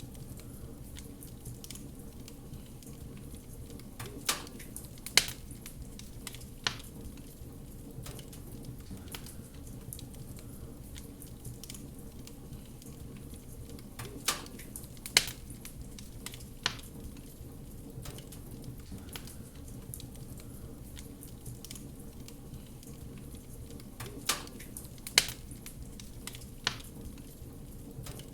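Wood fire burning in a fireplace: a steady low rustle and hiss of flames with sharp crackling pops. The pops come in groups of three that recur every ten seconds.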